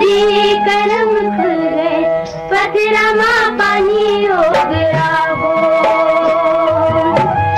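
Chhattisgarhi folk song: a woman singing long, wavering melodic notes over steady instrumental accompaniment.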